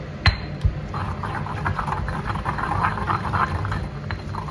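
Spoon stirring chimichurri sauce (pounded garlic, herbs and olive oil) in a mortar: two sharp clinks of the spoon against the bowl, then about a second in, continuous wet stirring and scraping.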